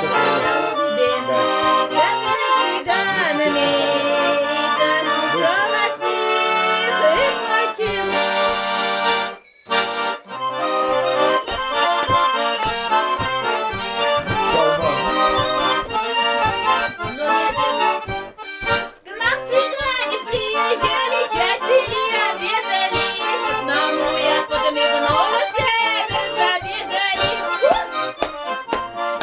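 Russian garmon (button accordion), repaired and tuned by its player, playing the song's melody alone, with two brief breaks in the playing about nine and nineteen seconds in.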